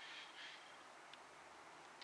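Near silence: faint outdoor background hiss, with two soft, short high sounds in the first half second.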